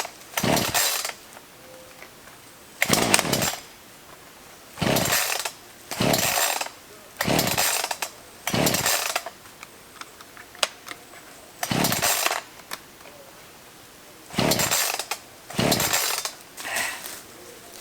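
Black Max 16-inch two-stroke gas chainsaw being pull-started again and again: about ten short whirring pulls of the starter cord, a second or two apart, without the engine settling into a steady run. It is not catching and running.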